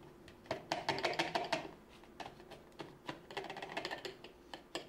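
Red plastic funnel rattling and tapping against the rim of a stainless steel extraction column as ground lavender is shaken down through it, in two spells of quick clicking taps.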